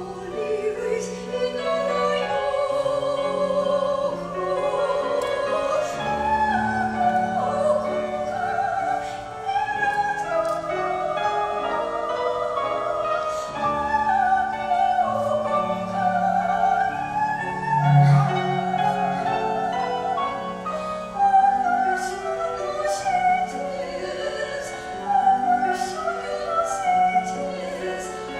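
Choir singing a movement of a choral mass in several parts, on held notes with vibrato and crisp consonants.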